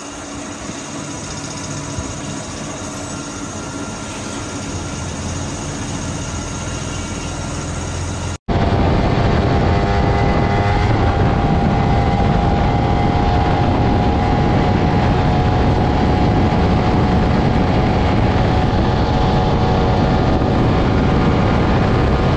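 A motorcycle engine running steadily at a constant speed. There is an abrupt break about eight seconds in, after which it is louder.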